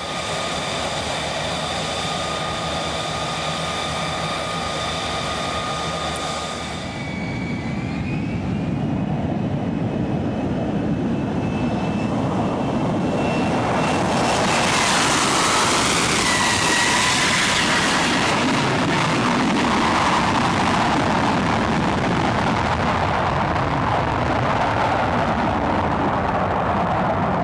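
F-35B Lightning II's jet engine running with a steady high whine. The whine rises in pitch about seven seconds in, and about fourteen seconds in a louder rushing roar builds and holds.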